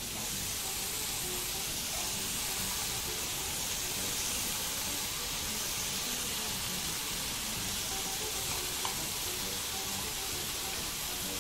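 Marinated zucchini pieces sizzling on a hot ridged cast-iron grill pan, a steady hiss as they sear.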